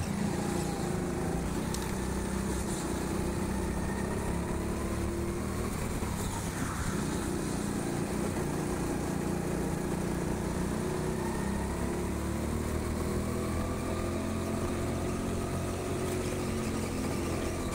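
Rental go-kart running at speed, heard from its onboard camera: a steady engine note that rises and falls gently in pitch as the kart speeds up and slows through the corners.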